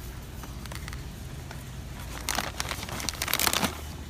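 Snack bag crinkling in two bursts as it is handled, over a steady low hum.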